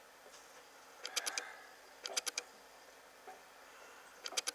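Short clusters of light, sharp metallic clicks, three or four quick clicks in each, coming roughly once a second over a faint room hush.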